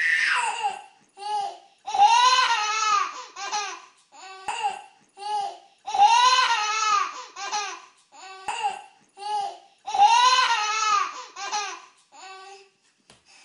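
Toddler laughing in high-pitched peals. Three times, about four seconds apart, a long laugh is followed by several short giggles.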